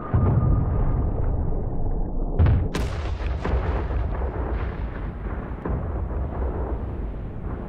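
Explosions: a deep rumbling blast starts at once, a sharper, louder blast follows about two and a half seconds in, then crackling and a rumble that slowly dies down.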